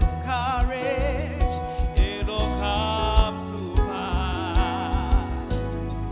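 Gospel song: a lead voice sings a wordless run with heavy vibrato, over bass and a steady drum beat.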